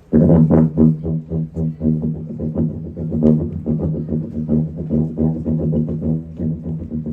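Background music with a low sustained drone and a fast pulsing rhythm, coming in abruptly.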